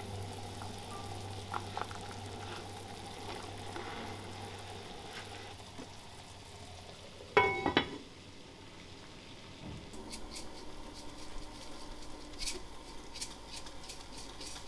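A brown sauce simmering in an enamelled cast-iron Staub pot while a ladle stirs it. About halfway through, the heavy cast-iron lid is set on the pot with a ringing clank, two knocks close together. Scattered light ticks follow near the end.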